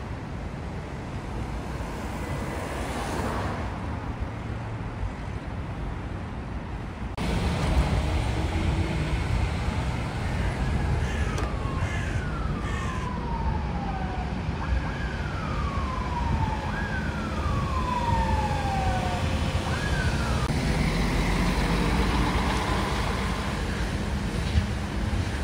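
Road traffic with intercity coaches and cars passing, the traffic noise getting louder about seven seconds in. In the middle a distant siren sounds a falling wail about five times, each sweep jumping up and sliding down.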